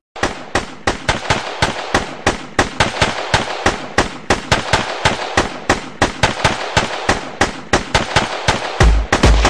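Airsoft guns firing in an irregular, rapid string of sharp cracks, several shots a second.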